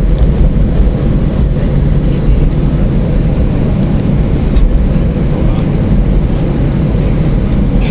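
Steady low rumble of an Airbus A320's cabin while the airliner taxis, its engines running at idle, heard from inside the passenger cabin.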